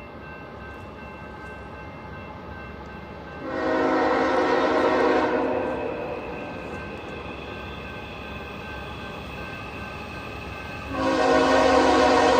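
A Nathan Airchime K5HL (third-generation) horn on a CSX freight locomotive blowing two long chords. The first starts about three and a half seconds in and lasts about two seconds before trailing off; the second starts near the end and is still sounding.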